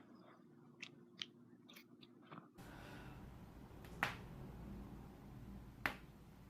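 Joint cracking: a few small, sharp pops in the first couple of seconds, then two louder single cracks about two seconds apart over a steadier background hiss.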